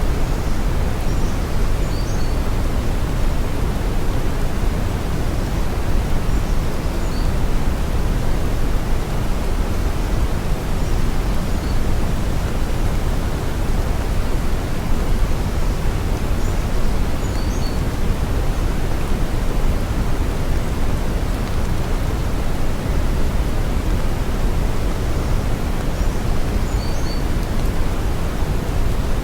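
Brown noise: a steady, deep rushing hiss that is heaviest in the low end and thins toward the top, holding a constant level throughout.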